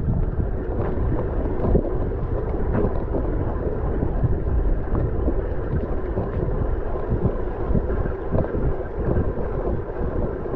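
Wind buffeting the action camera's microphone as a mountain bike rides a rough, muddy dirt track, with the bike rattling and knocking over the bumps throughout.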